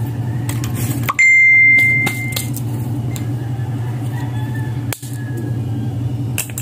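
A single bright metallic ding about a second in that rings clearly and fades out over about a second, over a steady low hum.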